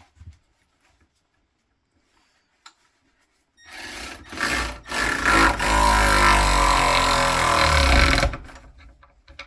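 Milwaukee M12 cordless ratchet's motor running under heavy load as it drives a large bolt into a pre-made hole, starting about a third of the way in, pausing briefly after a short burst, then running steadily for about three seconds before stopping.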